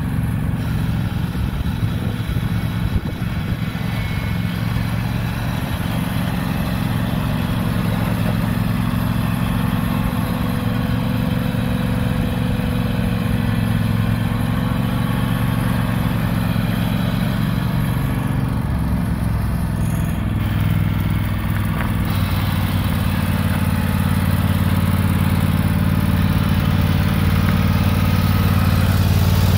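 Husqvarna riding lawn mower's engine running steadily as it is driven. About two-thirds of the way through, the engine note shifts, then settles into a steadier, slightly louder hum toward the end.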